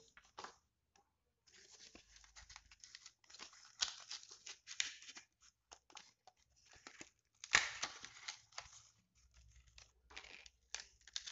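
Damaged display of an Oppo F1 smartphone being forced off its frame: adhesive and panel tearing and crackling in irregular bursts, with scraping, loudest about seven and a half seconds in.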